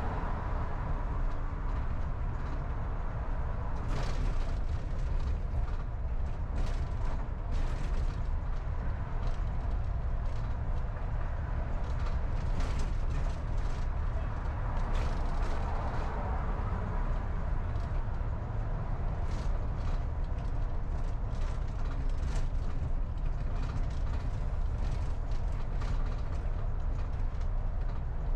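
Car driving along a city street: a steady low rumble of tyres and engine, with many short sharp clicks and knocks scattered throughout.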